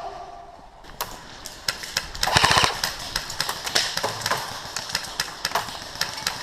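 Airsoft guns firing: scattered single shots throughout, with a short rapid full-auto burst about two seconds in as the loudest part.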